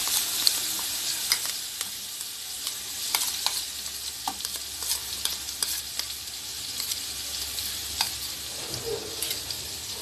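Ginger-garlic paste and golden fried onions sizzling in hot oil in a large metal pot, with a steel spoon clicking and scraping against the pot as it is stirred.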